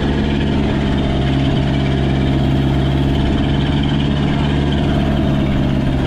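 Fishing boat's engine running steadily at a constant speed.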